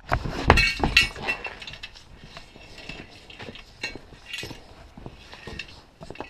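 Repeated metal clinks and knocks from a wheel and tire being handled on a manual tire changer, loudest in the first second or so, then lighter scattered clicks.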